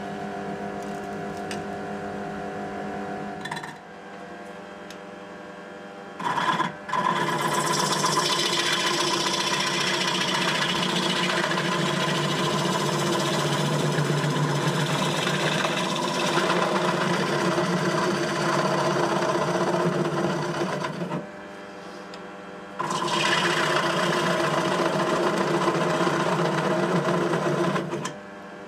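Homemade wood lathe's motor running with a steady hum, and a turning gouge cutting into the spinning bowl, hollowing out its inside: a rough scraping over the hum in two long spells, from about a quarter of the way in and again after a short pause.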